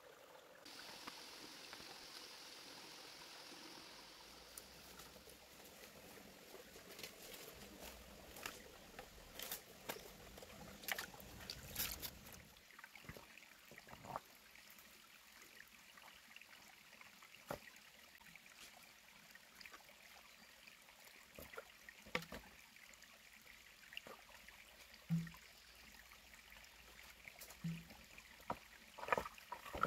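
Faint trickling water, with scattered light clicks and knocks throughout.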